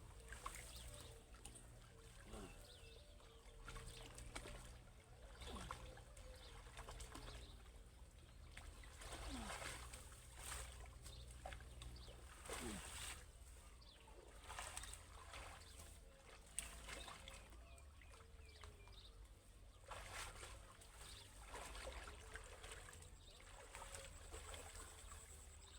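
Faint, irregular splashing and trickling of shallow pond water, in short bursts every second or two over a low steady hum.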